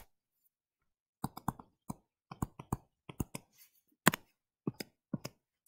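Stylus tip tapping and clicking against a tablet screen during handwriting, a string of short sharp clicks that starts about a second in.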